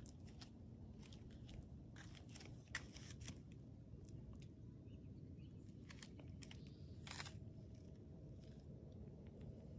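Near silence: a faint low background rumble with scattered soft clicks and crunches, the sharpest a little under three seconds in.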